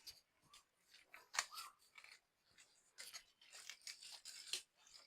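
Faint, irregular crackling and rustling of dry bamboo leaves and stems, with a thick run of crackles in the second half.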